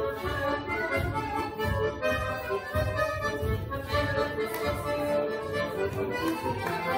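Lively folk dance music with a steady beat, playing for a circle dance.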